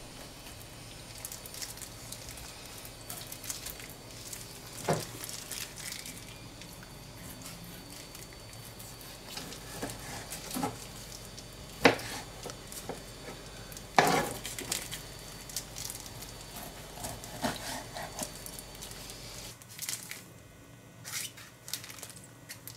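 Knife cutting raw liver on a plastic cutting board, with scattered knocks and taps of the blade against the board. The two loudest come about twelve and fourteen seconds in.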